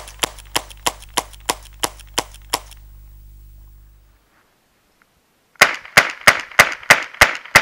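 An Alfa Carbine .22 LR revolver-action carbine is fired rapidly, about three shots a second: a string of about nine shots, a pause of about three seconds, then a second, louder string. The action cycles without a jam.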